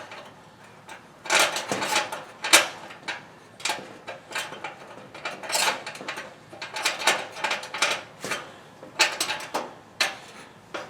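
Irregular metallic clicks, taps and short scrapes of a pick and a small screw being worked against a clothes dryer's rear bearing plate while trying to line the screw up.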